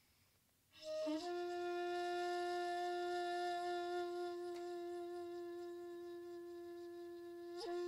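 Shakuhachi, the Japanese end-blown bamboo flute. After a moment of near silence, a note comes in with a breathy attack about a second in, slides up briefly and settles into one long, steady tone. Near the end a quick flick in pitch dips and returns to the same note.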